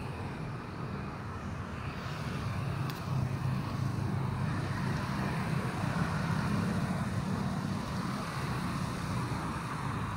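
Steady rumble of road traffic and engines, with a single short tick about three seconds in.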